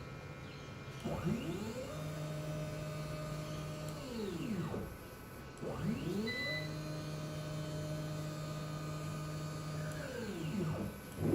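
CNC router's axis drive motors whining through two moves. Each time the pitch rises as the gantry speeds up, holds steady, then falls as it slows to a stop.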